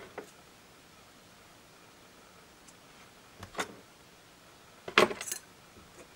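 Small hard clicks and clinks of handling li-ion battery cells and a metal strip: a faint click at the start, two light clicks about three and a half seconds in, and a louder quick cluster of clicks about five seconds in.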